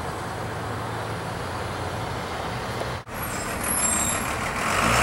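Steady street traffic noise, then after a cut a delivery truck's engine running, with a brief high squeal and the engine growing louder near the end.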